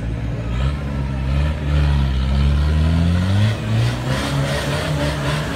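Engine of a 4x4 trial buggy revving hard: the pitch climbs about half a second in, holds, drops about three and a half seconds in, then rises again.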